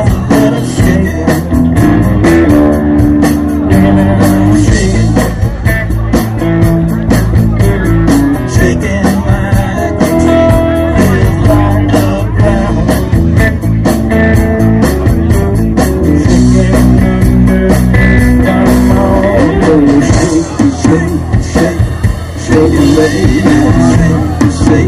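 A live rock-and-roll band playing: electric guitar, electric bass and drum kit, with the drums keeping a steady beat.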